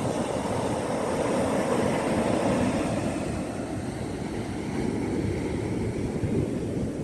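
Ocean surf: a steady, low rush of waves breaking on a shore, easing slightly after about three seconds.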